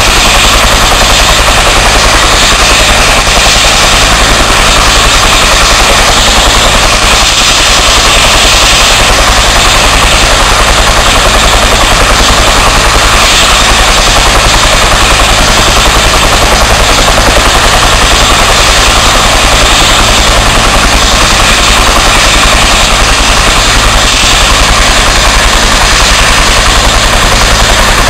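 Bell 212 twin-turbine helicopter running on the ground, loud and steady: its two-blade main rotor beats in a fast, even thump over a constant high turbine whine.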